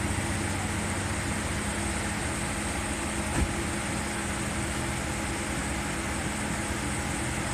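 A steady mechanical hum with a faint hiss. One short knock comes about three and a half seconds in.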